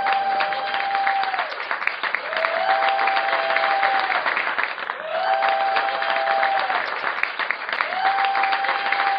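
Crowd applauding and clapping steadily. A held note sounds four times over it, each about a second and a half long, alternating slightly higher and lower.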